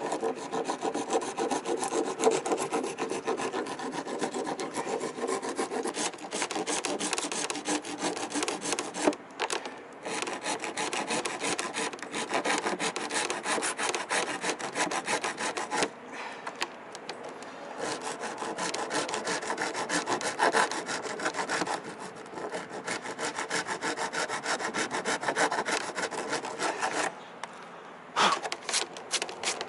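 Flat metal hand file scraping rapidly back and forth over the cured epoxy surface of a boat hull, filing off hardened epoxy drips. The strokes run in long bursts broken by several short pauses.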